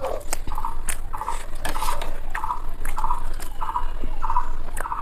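Close-up chewing and mouth sounds of a person eating chicken biryani, a chew about every two-thirds of a second, with a few sharp clicks of hand or spoon against the plate.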